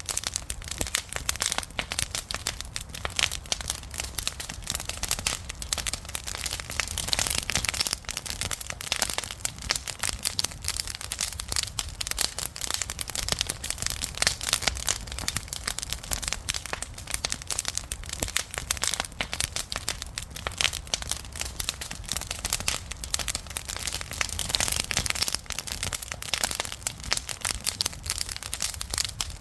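Wood fire burning, with dense, irregular crackling and popping and a low rumble underneath.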